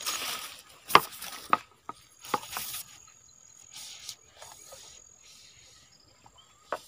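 A bamboo-framed lift net being raised out of water: short bursts of splashing and dripping, and a few sharp knocks, over a steady high insect trill.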